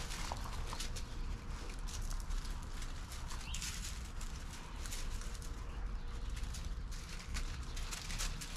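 Irregular footsteps and scuffing on wet ground, over a steady low rumble.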